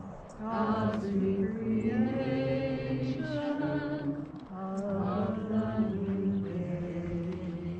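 A group of voices singing slowly in long held notes, with brief breaks just after the start and about four seconds in.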